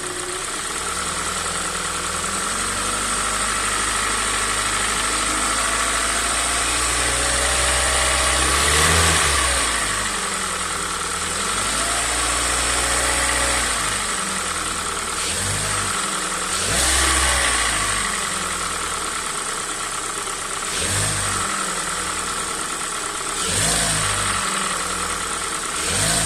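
Hyundai i40's 2.0 G4NA four-cylinder petrol engine running cold, with the revs raised slowly once and then blipped briefly several times. It carries a knock of unknown cause, which the dealer called a design characteristic and which an engine teardown did not explain.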